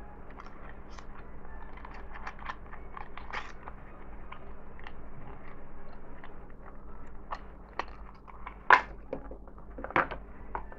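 Thin cardboard and paper packaging handled by hand: a small box's flaps being folded and paper inserts pulled out, giving crinkly rustling and many small clicks, with a couple of louder snaps near the end.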